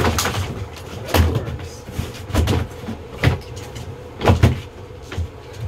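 Irregular knocks and thumps, about six in a row, with rustling in between.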